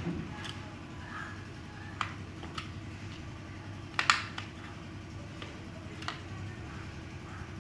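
Sharp clicks and taps of a RAM module and the motherboard's memory-slot clips being handled, the loudest a double click about four seconds in, over a steady low hum.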